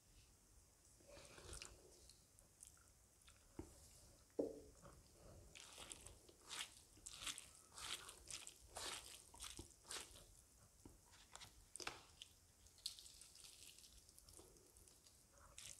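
Near silence with faint, scattered wet clicks and squishes of fingers mixing cooked rice with axone curry by hand, busiest in the middle stretch.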